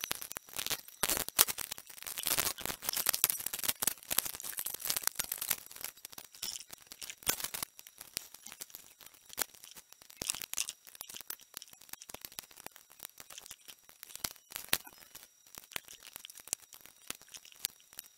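Hands working a circuit board with a soldering iron to desolder parts: scattered small clicks, taps and crackles, busiest in the first several seconds and sparser after. A faint steady high whine sits underneath.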